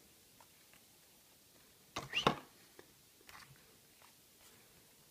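Faint handling noises from pocket knives and their packaging: a few soft clicks, with a short, louder rustle about two seconds in.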